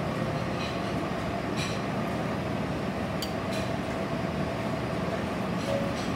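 Commercial kitchen background: a steady ventilation rumble with a faint whine, and a few light clinks of dishware.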